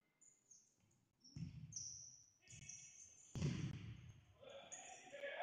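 A futsal ball being kicked and bouncing on a sports-hall floor: three dull thuds about a second apart, the loudest about three and a half seconds in, each echoing in the hall.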